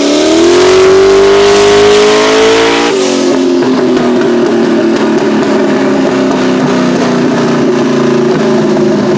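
High-horsepower car engine under load on a chassis dyno, revving up and rising steadily in pitch, then dropping back abruptly about three seconds in and running on at a steady speed.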